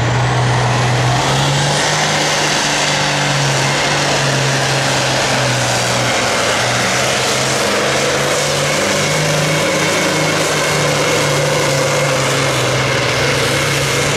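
Allis-Chalmers D21 classic super stock pulling tractor's turbocharged diesel engine running at full power, dragging the weight-transfer sled down the track. A loud, steady engine note that shifts slightly in pitch a few times.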